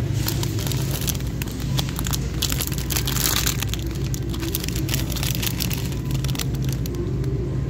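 Plastic instant-ramen package crinkling as it is handled and turned over in the hand: a dense run of crackles, busiest a few seconds in, over a steady low hum.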